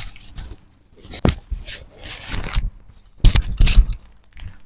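Compact umbrella being unfurled and opened by hand: nylon canopy rustling, with sharp clicks from the ribs and runner, the loudest pair about three seconds in.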